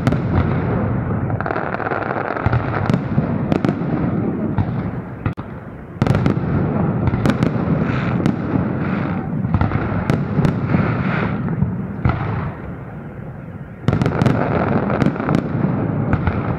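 Festive fireworks display: a dense run of sharp bangs over a continuous rumble. Fresh, louder volleys set in about 6 seconds and 14 seconds in.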